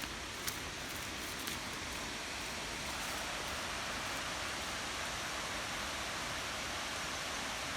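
Steady rushing noise of water, a little stronger from about three seconds in, with a few faint ticks in the first two seconds.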